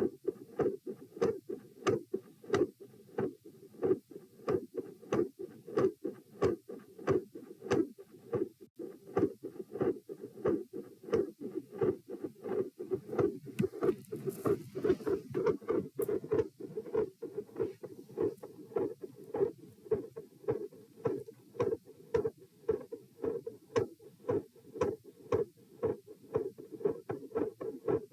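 Doppler probe on the chest giving out the heartbeat as a steady, regular pulsing whoosh, with a sharp click at each beat. The uploader describes the heart as having multiple murmurs.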